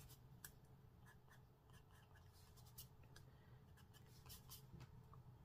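Faint scratching of a yellow pastel pencil on card, in short irregular strokes, over a low steady hum.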